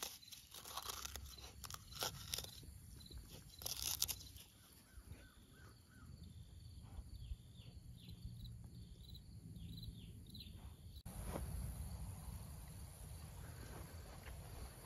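A puppy chewing on something hard, a run of crunching clicks for about four seconds. Then faint, short, high chirps in the background.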